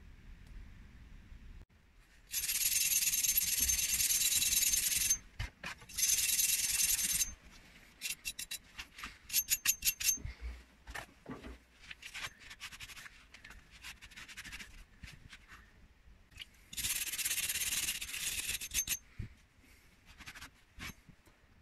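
Wire brush scrubbing the wet, rusty steel head of a hatchet to clear off rust loosened in a vinegar-and-soda soak: long scrubbing runs of a few seconds each, a quick series of short strokes around the middle, and another long run near the end.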